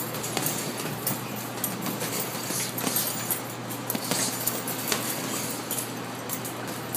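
Boxing gloves landing irregularly on hanging heavy bags, with the bag chains jangling and clinking.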